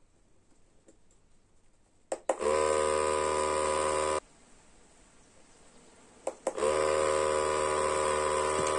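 Small DC motor inside a cardboard earthquake model switched on twice, each time with a click, running with a steady buzz that shakes the model. The first run lasts about two seconds and cuts off suddenly; the second starts about six seconds in.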